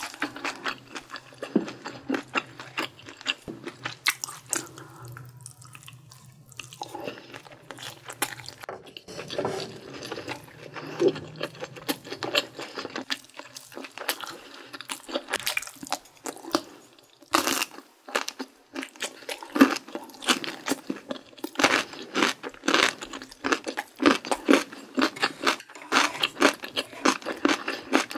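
Close-miked eating sounds: chewing with wet mouth noises, then crisp, rapid crunching as kimchi is bitten and chewed in the second half. A low steady hum runs under the first part.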